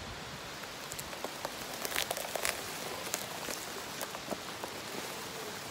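Dry leaves and twigs crackling and snapping under the tyres of an electric golf cart rolling up a leaf-covered dirt trail. There is a steady crackle with scattered sharp snaps, thickest about two seconds in, and no engine sound.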